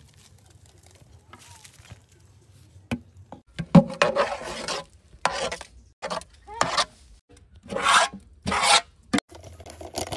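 A utensil scraping in a cooking vessel during mixing, five rough strokes in a row starting about three and a half seconds in.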